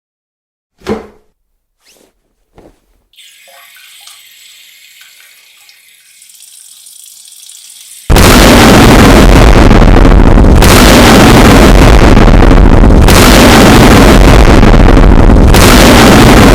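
A few short thuds and clicks, then a faint hiss. About eight seconds in, an extremely loud, distorted explosion sound effect cuts in and keeps going, swelling about every two and a half seconds.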